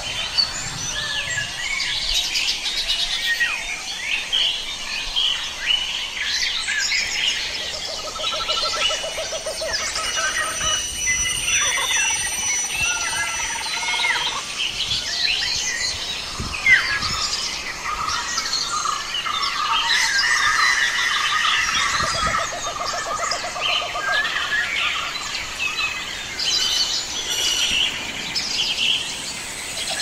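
A chorus of many forest birds calling and singing at once, with chirps, whistles and trills overlapping continuously. A rapid, low, pulsing trill stands out about eight seconds in and again around twenty-two seconds.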